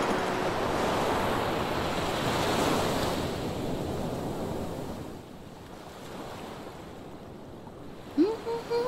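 Sea waves and wind noise washing steadily, fading down about halfway through. Near the end a tune starts.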